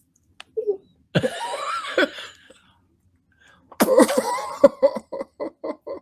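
Laughter, then a quick run of short pitched mouth pops, about five a second, made by two people imitating a fish's mouth.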